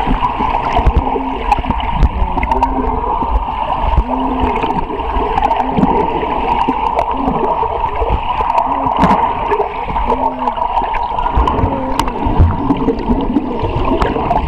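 Pool water churning and bubbling, heard from underwater, as arms drive foam water dumbbells back and forth through it: a steady rushing noise with scattered sharp ticks.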